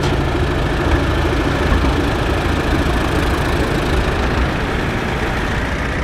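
Antique Allis-Chalmers tractor engine running steadily.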